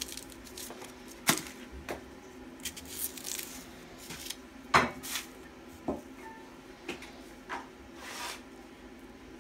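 Dry onion skin crackling and rustling as it is peeled off with a knife, in irregular short crackles and scrapes.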